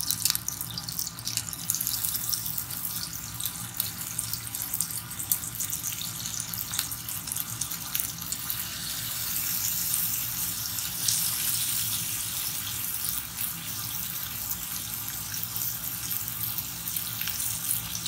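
Horumon (offal) frying in a pot, the fat sizzling with many small crackles and pops, growing louder and denser about ten seconds in once more pieces are in the pan.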